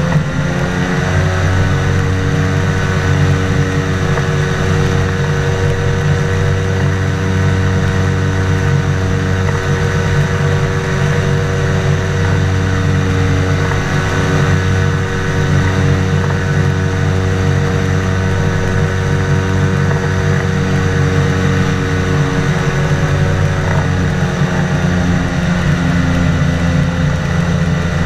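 The engine and propeller of a flying inflatable boat running steadily at speed. Its pitch drops slightly at the start and climbs again near the end.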